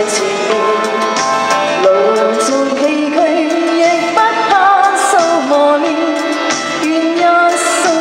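A woman singing into a handheld microphone over backing music, amplified through a PA system, with held notes sung with vibrato.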